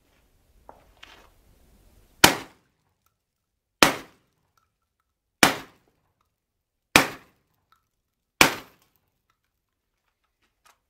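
JTS AK-style 12-gauge semi-automatic shotgun firing five shots about a second and a half apart, after a couple of faint clicks of handling. Each shot cycles and feeds the next Winchester Universal shell without a stoppage.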